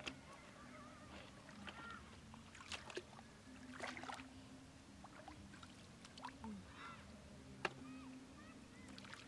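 Quiet sloshing and small splashes of shallow flowing water as feet wade and a hand reaches into it to pick up snails, with a few sharp clicks and faint high chirping calls in the background.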